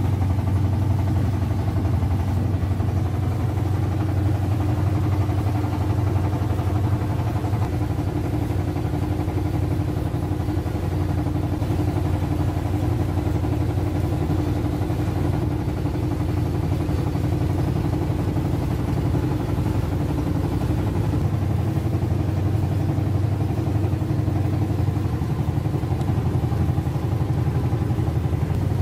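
A fishing boat's engine running steadily as the boat motors out to sea, with a constant low hum.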